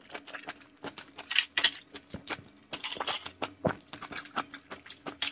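Metal chopsticks clicking and scraping against scallop shells: a string of quick, light, irregular clinks and taps.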